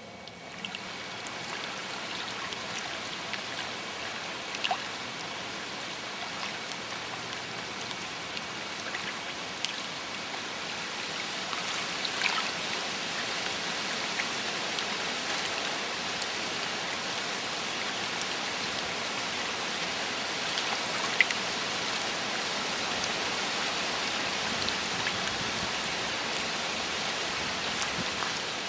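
Steady rush of water with scattered small drip-like ticks, swelling up about a second in and easing off near the end.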